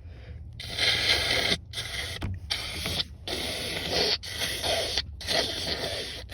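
A person blowing their nose hard into a shirt: several forceful noisy blows in quick succession, each under a second long with brief breaks between.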